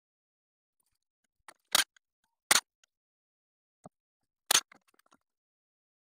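Hand tools clicking against metal parts while the tractor's engine fan is being taken off: three sharp clicks, the second and third about two seconds apart, with a few fainter ticks.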